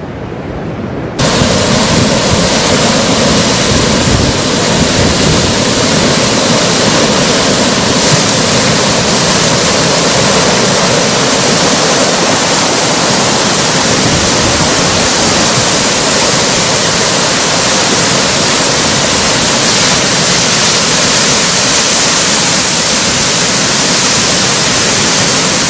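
Mud and debris flow rushing down a stone-lined channel: a loud, steady rush of churning water and mud that sets in suddenly about a second in.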